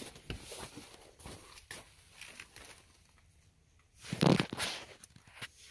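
Faint rustling and light clicks of movement while filming close to the winch, with one louder scuffing rustle about four seconds in.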